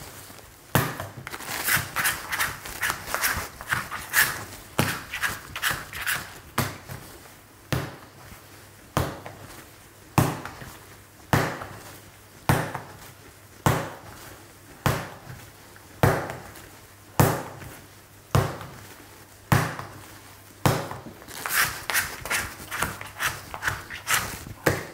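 Soft, sticky bread dough slapped down hard by hand onto a wooden workbench and folded over, about one slap a second in a steady rhythm, with smaller sticky smacks between slaps. This is the slap-and-fold hand mixing that builds the dough's strength.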